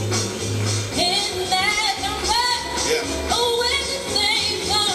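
A song with a singer and a pulsing bass line playing from a television set's speaker.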